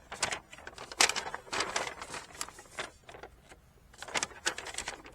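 Rustling and crinkling as a car seat cover is handled, in irregular strokes, with a sharp clack about a second in.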